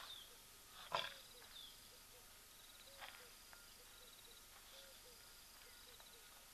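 Faint chirping of insects and birds, with one short, sharp, loud sound about a second in and a weaker one about three seconds in.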